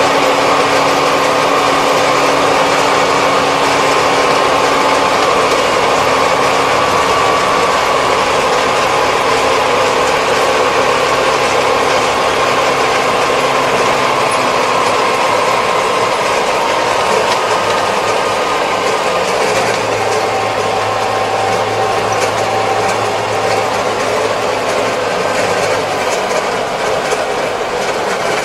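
Kubota 75-horsepower tractor driving on the road, its engine and drivetrain heard from inside the cab. There is a steady whine over the engine note, and the tones shift around the middle.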